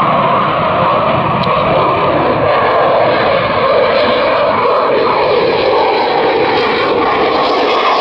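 Boeing F/A-18 Super Hornet's twin General Electric F414 jet engines running at display power: a loud, steady jet roar whose tone shifts slowly as the jet turns overhead.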